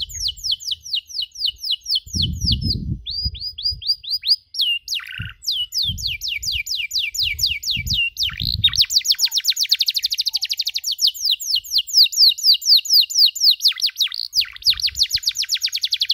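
Domestic canary singing cuit-cuit chirps: long runs of quick, high, downward-sweeping notes repeated many times a second, broken by short pauses and quickening into a very fast trill about halfway through.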